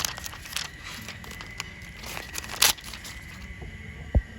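Small clicks, crackles and scrapes of smartphone screen parts and tools being handled and prised, with a louder click about two thirds of the way in and a dull thump near the end.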